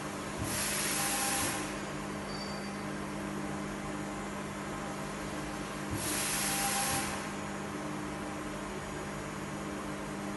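5-axis CNC milling machine running with a steady hum, with two roughly one-second bursts of coolant spray hissing over it, about half a second in and again about six seconds in.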